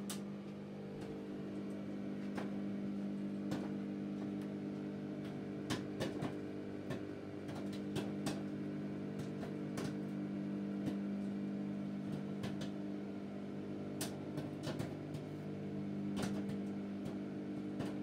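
Sharp microwave oven humming steadily while a bag of microwave popcorn pops inside it, sharp single pops coming irregularly, roughly one a second: the popping is in full swing, about halfway through.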